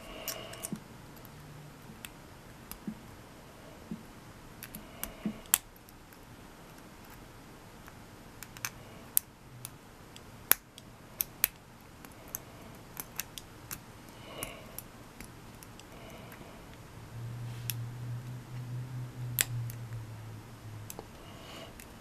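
Faint, irregular metal clicks and ticks of a hook pick and tension wrench working inside a padlock's pin-tumbler keyway as the pins are picked, a few taps at a time with pauses between.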